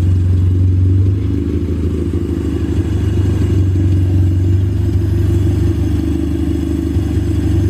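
Honda Civic EG hatchback engine running at a steady speed, a loud low even hum with no revving.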